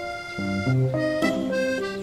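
Background music: a light melody of short notes changing every fraction of a second over a moving bass line.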